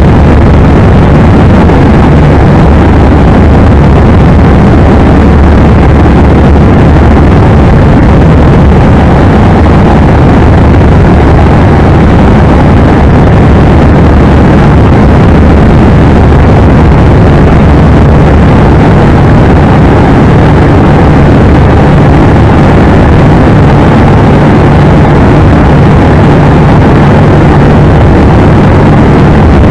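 Gerle-2 open-cockpit biplane in flight: the engine and propeller drone steadily under a loud rush of wind across the open cockpit.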